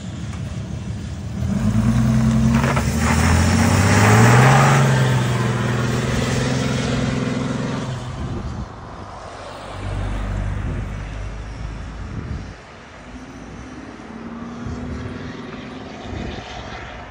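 RAM 2500 pickup's Cummins 6.7 straight-six turbo-diesel running through an aftermarket exhaust with a 6-inch tip and plug-and-play diffuser, accelerating hard away with a rising engine note. It is loudest about four seconds in, then holds and fades as the truck goes down the road, with a further low rumble around ten seconds in.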